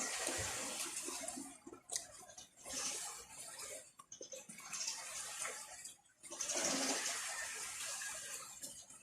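Water running and splashing in about four stretches of one to three seconds, with brief breaks between them.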